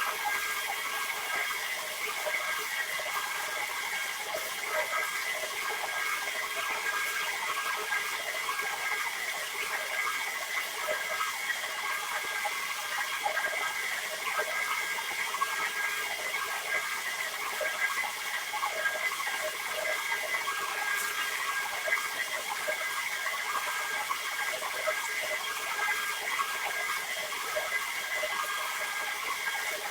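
Water running and splashing steadily, with a constant rushing hiss and no breaks.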